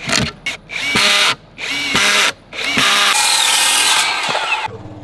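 Cordless drill driving screws in separate trigger pulls. A few quick blips come first, then three runs, each with the motor whine rising as it spins up. The last run is the longest, about two seconds.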